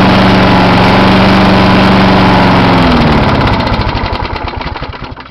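Briggs & Stratton Quantum 6.5 HP single-cylinder mower engine running steadily, then shut off about three seconds in, its firing slowing and fading as it coasts to a stop.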